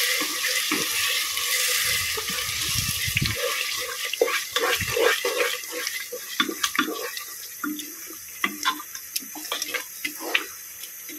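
A steady hiss from a pot of biryani masala on the stove, fading over the first few seconds, then a run of light clinks and scrapes as a spoon stirs it.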